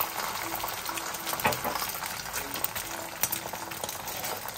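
Sandwich frying in a pan: a steady crackling sizzle with scattered small pops.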